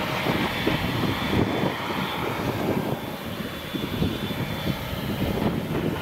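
Claas Jaguar 970 self-propelled forage harvester working under load: a steady engine and chopper drone as it cuts and chops standing triticale for whole-crop silage.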